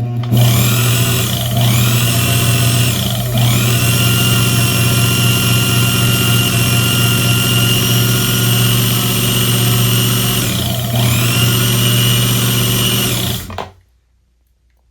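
Small electric motor of a watchmaker's lathe running at speed with a steady whine and hum. Its pitch dips briefly and recovers three times, and it cuts off suddenly near the end.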